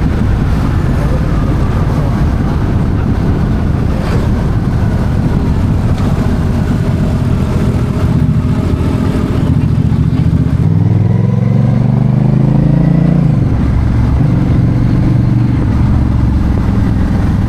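Engine of a motor vehicle running under way with heavy rumble and road noise; about eleven seconds in the engine pitch climbs for a couple of seconds, as if revving up or pulling harder, then settles.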